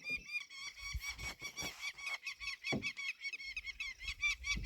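A bird calling in a rapid, steady series of short, high-pitched notes, about five a second.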